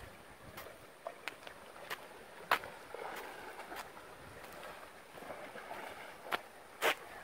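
A horse wading through a river, its legs sloshing and splashing in the water at irregular intervals, with the sharpest splash about two and a half seconds in and two more near the end.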